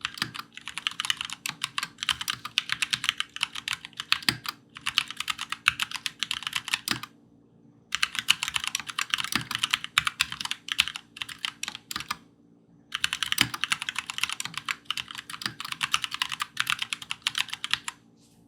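Fast typing on a COX CK87 mechanical keyboard with tactile Gateron Brown switches: rapid runs of key clacks, broken by two pauses of about a second, stopping just before the end.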